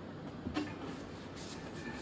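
Suspension upright being handled on a wooden floor jig: a light knock about half a second in, over a steady background noise.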